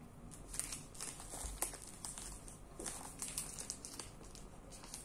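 Faint, irregular crinkles and crackles of a snack wrapper being handled.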